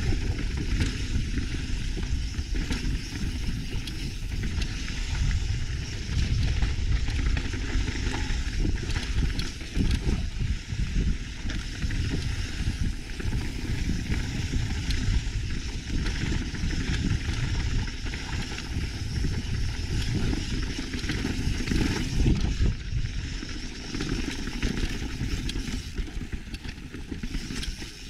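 Mountain bike riding downhill on a rocky gravel trail: knobby tyres rumbling and crunching over loose stones, with continuous rattling and clattering from the bike.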